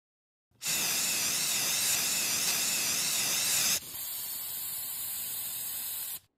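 A pressure-washer snow foam lance spraying with a hiss. The hiss starts about half a second in and is loud for about three seconds, then drops to a quieter hiss and cuts off suddenly near the end.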